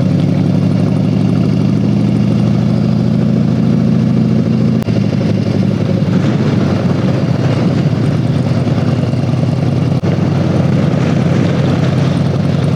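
Harley-Davidson Heritage Softail's V-twin engine running steadily while the bike is ridden along the road.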